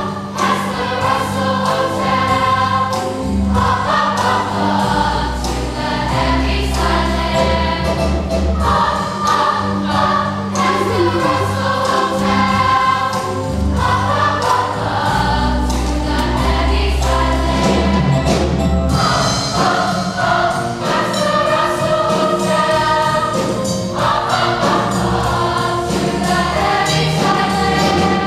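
Middle-school cast singing together as a chorus over instrumental accompaniment with sustained bass notes.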